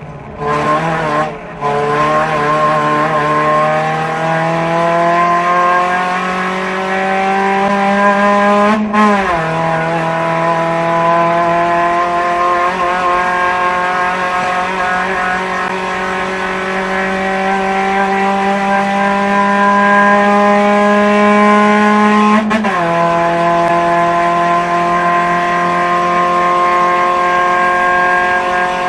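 Race car engine heard from inside the cockpit under full throttle, its note rising steadily through each gear. Upshifts about 9 and 23 seconds in drop the pitch, and there is a brief stutter about a second in.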